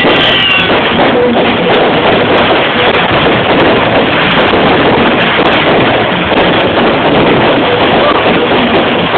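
Loud, steady wash of noise from a fireworks display, the many bursts and crackles running together into one continuous rush.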